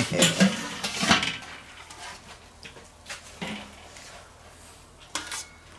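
Steel lid of a Weber kettle grill lifted off with a loud metal clank and knocks, then metal tongs clicking against the grill grate a few times as the steaks are picked up.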